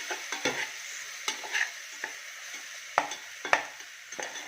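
Onions and spices frying in hot oil in a pan with a steady sizzle, stirred with a spatula that scrapes and clicks against the pan, with two sharper knocks near the end.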